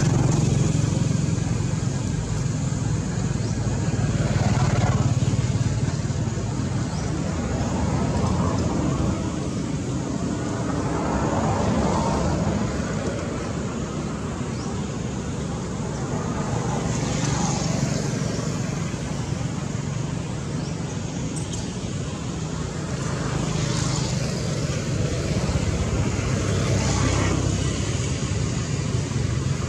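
Steady background road-traffic noise, the engines of passing vehicles and motorbikes rising and falling in slow swells every few seconds.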